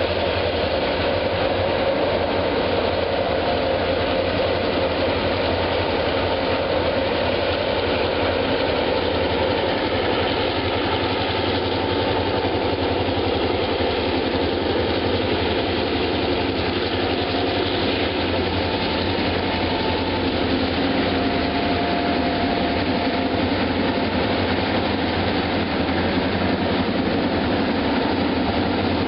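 Several diesel-electric locomotives working hard under load as they haul a loaded grain train up a grade, with a steady, heavy engine drone as the lead units pass close by.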